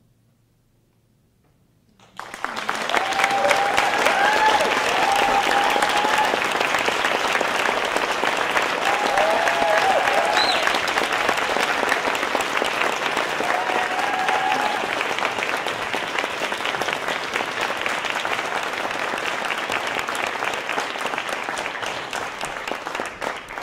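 Near silence, then about two seconds in an audience breaks into applause that keeps going, with a few cheers rising above the clapping; it eases slightly near the end.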